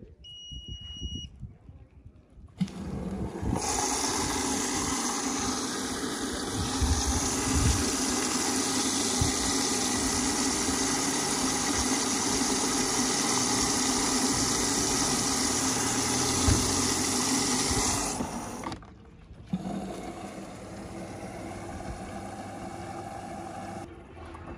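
Gorenje WA65205 front-loading washing machine beeping briefly as START is pressed on its touchscreen, then its water inlet valve opening and mains water rushing into the detergent drawer with a loud steady hiss: the first fill of a test wash. The flow stops about 18 seconds in and resumes more quietly a second or so later.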